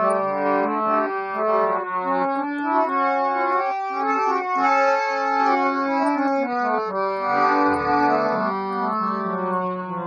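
Harmonium playing an instrumental interlude: a melody of sustained reedy notes moving step by step over held low notes.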